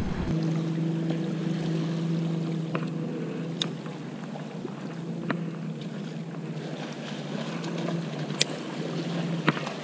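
Boat motor droning steadily at one pitch, with a few sharp clicks over it.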